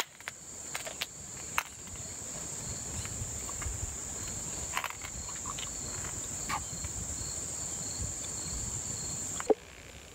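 A summer insect chorus: a steady, high-pitched buzzing drone with a fainter pulsing note beneath it. A few sharp clicks sound over it, and about nine and a half seconds in the buzzing cuts off with a louder click.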